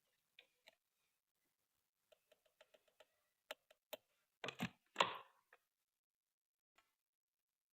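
Scattered light clicks and taps, like small parts or tools being handled, with two louder knocks with a rustle about four and a half and five seconds in, the second the loudest.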